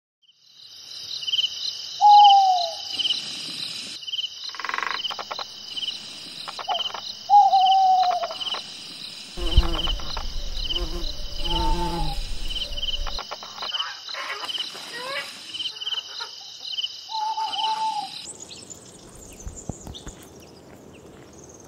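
Crickets chirping in a steady, even rhythm, joined by a few short falling calls from another animal and a lower, rougher call in the middle. The chirping stops suddenly near the end, leaving faint outdoor ambience.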